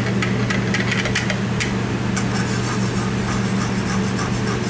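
Steady low mechanical hum, with a run of light clicks and taps in the first two seconds as a utensil is worked in the pan of sauce, and fainter ticks later on.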